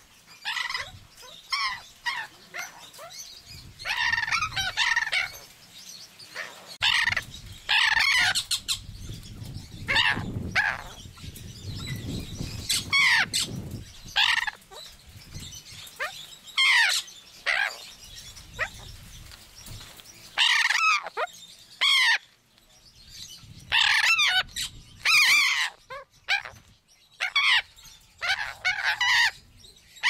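Caged parrots calling loudly and harshly, a string of grating squawks every second or two, each made of quick up-and-down notes.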